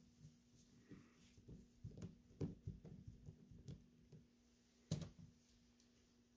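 Faint clicks and scrapes of a screwdriver turning out the trap spring screw of an SMLE Mk III* rifle's butt plate, with one sharper click about five seconds in.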